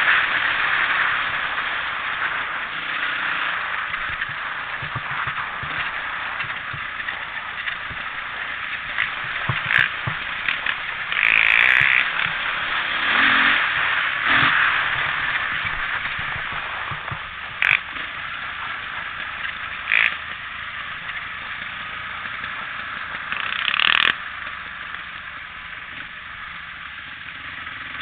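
ATV being ridden over grass and fallen leaves: a steady rush of engine and riding noise, with several short knocks and scrapes along the way. It eases off toward the end as the quad slows.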